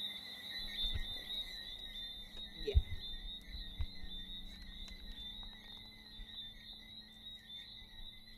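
A few soft bumps and rustles as a paperback book is handed over and leafed through, the loudest about three seconds in, over a steady high-pitched night chorus and a low hum.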